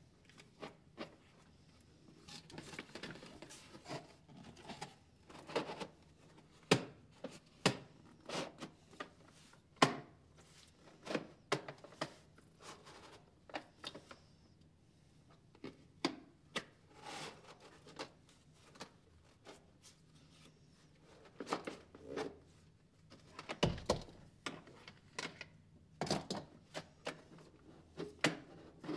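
Irregular clicks, taps and rubbing of small hard objects being handled close by, with one heavier knock late on.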